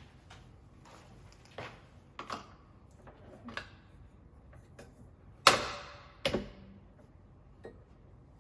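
Keurig coffee maker's plastic water-filter parts clicking and knocking as they are handled and fitted: a handful of separate knocks, the loudest about five and a half seconds in with a short ring, a second one just after.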